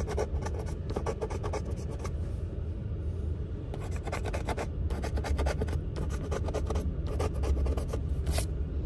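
A coin scratching the coating off a scratch-off lottery ticket: quick rasping strokes in runs, pausing briefly twice, over a low steady rumble.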